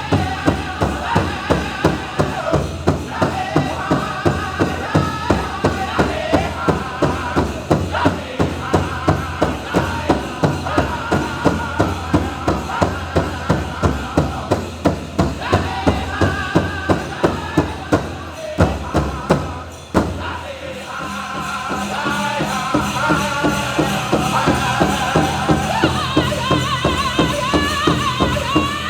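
Powwow drum group singing a chicken dance song over a steady beat on the big drum, about two strokes a second. About twenty seconds in the drumbeat drops out while the voices carry on.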